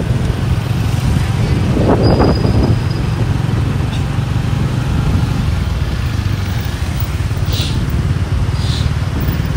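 Riding noise from a motorbike in traffic: a steady low rumble of engine, tyres and wind on the microphone. A brief louder sound comes about two seconds in, and two short hisses come near the end.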